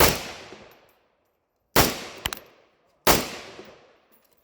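Three single rifle shots from an AMD-65-pattern AK rifle in 7.62×39mm, fired semi-automatically at a slow, uneven pace, each followed by a fading echo. A faint tick comes shortly after the second shot.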